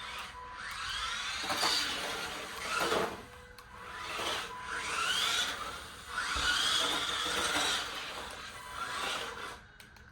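The electric motor of a Walmart 4RC Sniper RC drift car whines up and down in pitch in about three bursts as it is throttled, with rubbing and scraping noise under it.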